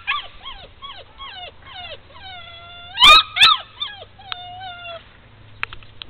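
Puppy whining in a run of short, high, falling whimpers, with longer drawn-out whines and two loud yelps about three seconds in.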